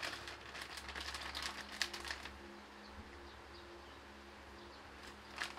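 Clear plastic zip bag crinkling as it is handled, in a quick run of rustles for about two seconds, then only faint rustling until a short crinkle near the end.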